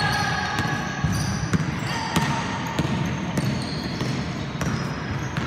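Basketball game play: the ball bouncing on the wooden court amid a run of knocks and footfalls, with players' shoes squeaking on the floor in short high squeals.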